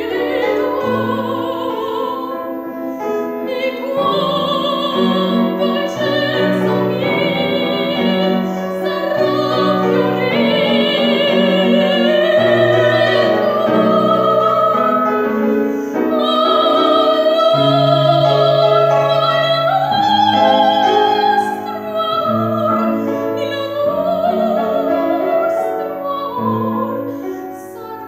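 Woman singing a classical art song in operatic style, with wide vibrato on sustained notes, over piano accompaniment.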